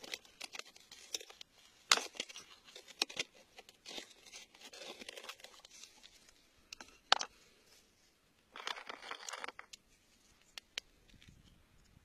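Metal tool scraping and prying in wet, gritty soil and stones, with crunching, scattered sharp clicks and a longer scrape about nine seconds in.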